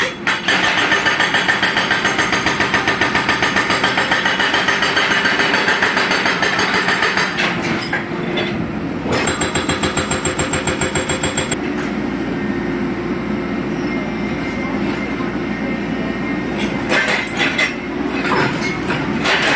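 Excavator-mounted hydraulic breaker hammering concrete railway sleepers in a rapid, even series of blows, several a second. The hammering eases briefly about two-thirds of the way through its run, then stops about 12 seconds in. After that the excavator's engine keeps running, with a few knocks near the end.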